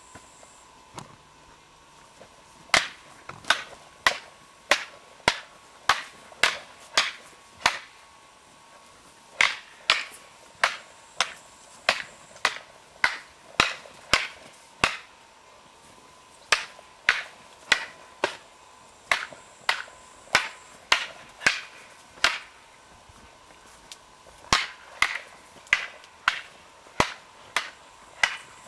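Two wooden bo staffs striking each other in sparring drills: sharp, loud clacks about two a second, in four runs of roughly seven to eleven strikes with short pauses between them.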